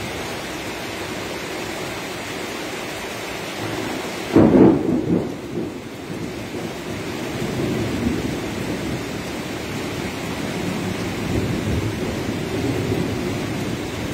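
Steady rain, with a sudden loud clap of thunder about four seconds in that rumbles away over a second or two.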